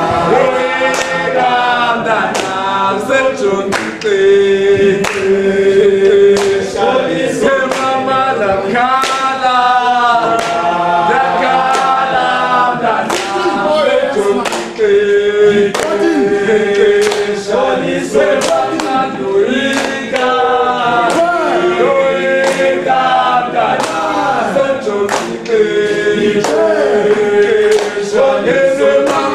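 A group of voices singing together unaccompanied, in harmony with long held notes, with sharp percussive hits keeping time.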